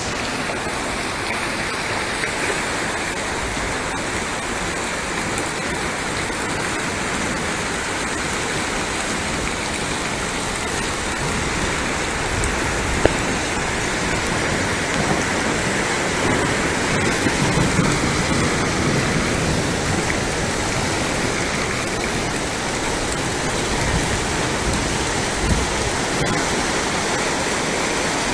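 Flash-flood water rushing through a wadi channel: a steady, full rush of muddy torrent, with one brief click about halfway through.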